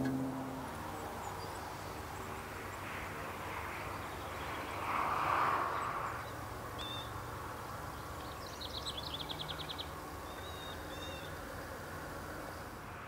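Open-country ambience: birds calling, with short chirps and a rapid trilled call about two-thirds of the way through, over a steady hiss of wind and a louder rushing swell about five seconds in.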